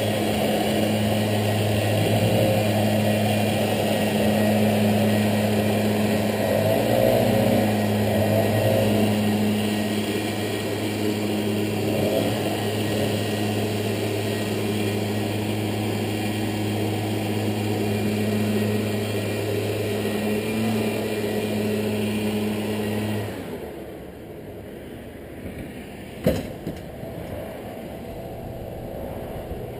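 Backpack leaf blower engine running steadily, then shut off abruptly about three-quarters of the way through. A single sharp click follows a few seconds later.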